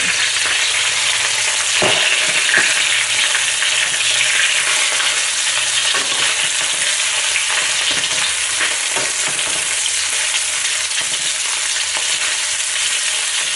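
Raw shrimp sizzling in hot cooking oil in a wok, a steady loud frying hiss. There are scattered knocks as they are stirred against the wok.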